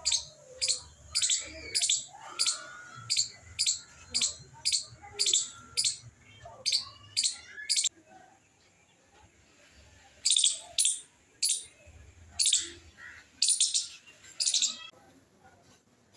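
A small animal giving short, sharp, high-pitched chirps, about two a second at first. It pauses for a couple of seconds midway, then chirps a few more times, less regularly.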